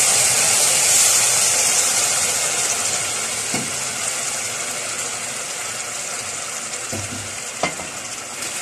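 Hot liquid hissing and sizzling on vermicelli toasted in butter and oil in a pot, the hiss fading gradually as it settles to a boil. A few light knocks of the silicone spatula against the pot come in while stirring.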